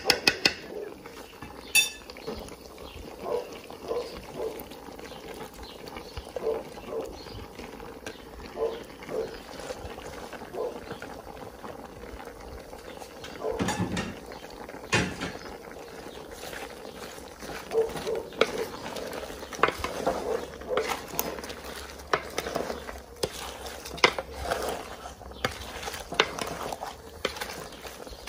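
A wooden spoon stirring crawfish and shrimp in a large aluminium pot, with irregular knocks, scrapes and clinks against the pot. The sauce simmers steadily underneath.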